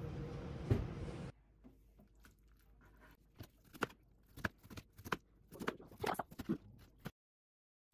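A chef's knife chopping cabbage kimchi on a cutting board: about a dozen crisp, irregular chops with short pauses between them. It opens with a second of steady background hiss and a single knock, and it cuts off suddenly to silence near the end.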